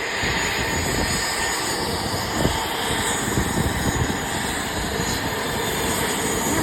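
Turboprop aircraft engines running steadily as the plane taxis in to park.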